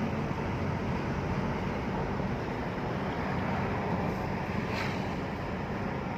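Steady road and wind noise from an Isuzu D-Max pickup cruising, with no distinct engine note.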